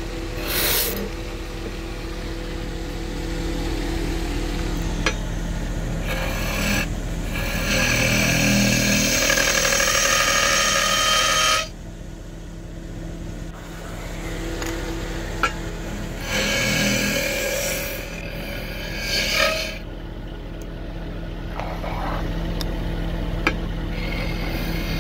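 A wood lathe running with a steady motor hum while a turning tool cuts into the spinning wood in passes. The longest and loudest cut comes about eight seconds in and stops sharply a few seconds later; a shorter cut comes a few seconds after that.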